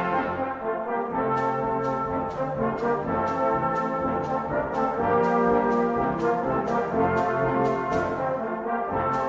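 A hymn tune played on brass instruments in sustained chords, with a soft tick keeping time about twice a second.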